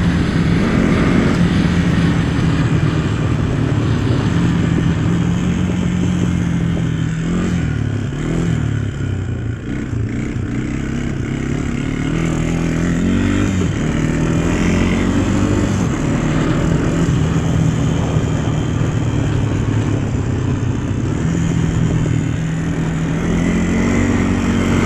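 A vehicle's engine running under way over heavy steady noise. Its note falls and rises with the throttle about a third of the way in and again around the middle, then steps up near the end.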